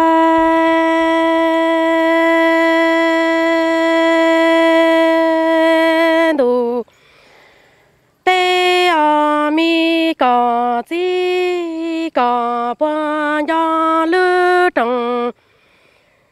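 Hmong kwv txhiaj sung poetry, sung unaccompanied: a singer holds one long steady note for about six seconds, breaks off, then a second or so later sings a run of short stepped syllables that stop shortly before the end.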